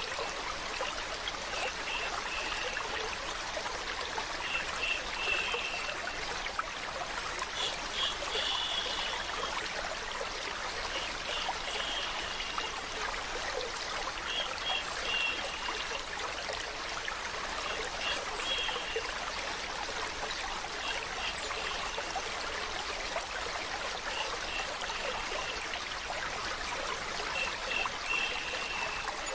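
Steady flowing water of a stream trickling and splashing, with short clusters of high chirps recurring every two to three seconds.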